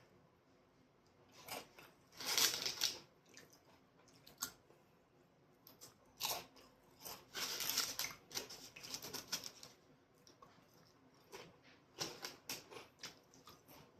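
A person eating close to the microphone: short, irregular crisp bursts of noise with quiet gaps between.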